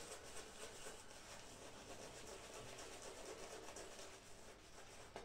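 Shaving brush swishing lather on the face, with quick regular strokes. The sound is faint and stops at the very end.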